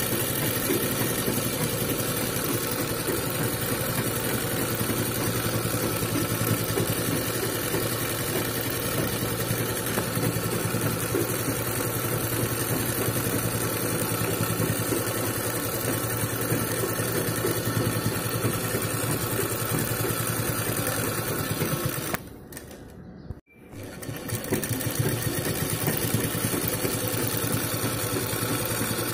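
Sewing machine running steadily, stitching through satin fabric. Near the three-quarter mark it stops for about two seconds, then starts stitching again.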